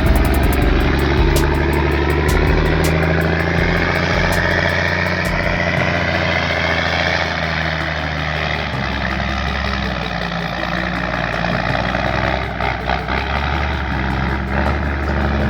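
Heavy truck engine running, a steady low drone.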